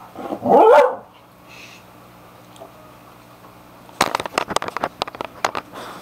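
A pitbull mix dog barks once, a short bark that slides in pitch, under a second in. About two-thirds of the way through comes a quick run of sharp knocks and rattles lasting a couple of seconds.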